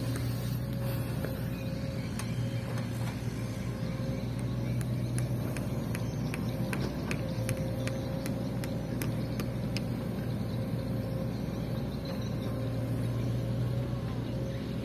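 Hyundai mini excavator's diesel engine running with a steady low drone. In the middle comes a run of sharp clicks and knocks over several seconds.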